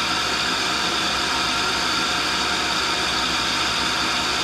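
Cincinnati No. 2 cutter grinder running: the wheel head spinning the grinding wheel while the motorized work head turns the hardened center, a steady, even whirring noise.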